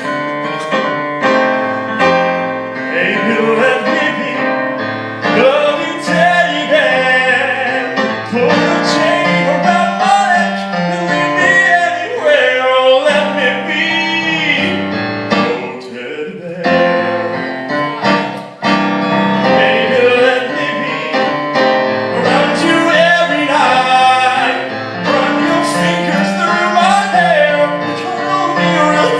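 Singing over piano-led accompaniment in a musical theatre number, voices holding and bending long notes.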